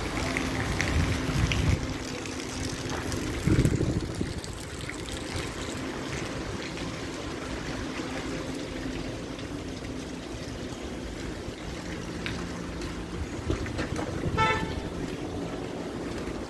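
Steady rain patter and hiss on a wet street, with a few low rumbles in the first four seconds. A car horn gives one short toot about two seconds before the end.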